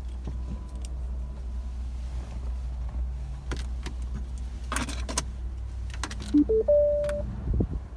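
Clicks and rattles inside a car cabin over a steady low rumble, then three short electronic beeps stepping up in pitch, the last one longer, about six seconds in.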